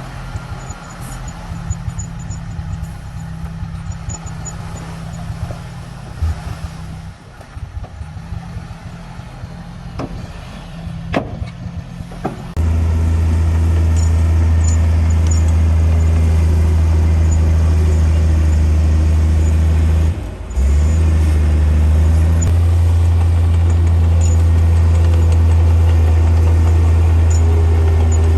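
Heavy diesel engine of earthmoving machinery running steadily, with a few clicks. About halfway through it suddenly becomes much louder and deeper and holds steady, apart from a brief dip about two-thirds of the way in.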